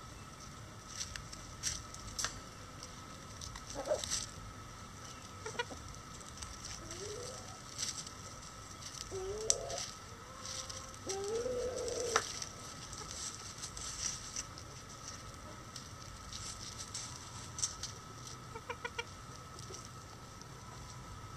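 Bantam chickens clucking softly: a handful of short low clucks through the middle, one a little longer just after the midpoint, with scattered light clicks.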